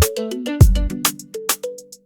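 Background music: plucked melody notes over a steady drum beat with a deep bass hit, thinning out near the end.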